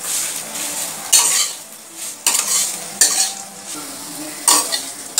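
Metal spatula scraping and tossing torn roti pieces around a metal kadai in about five strokes. Under the strokes, ghee sizzles steadily as the pieces fry.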